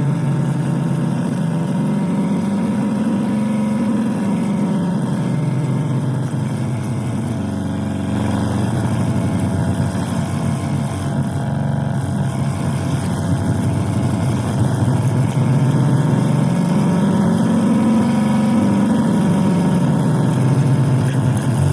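Tivoli Model One radio's speaker putting out a loud, rough buzzing drone with static in place of any station, its pitch slowly drifting up and down. The noise comes from a failing 78L08 8-volt regulator on the radio's board.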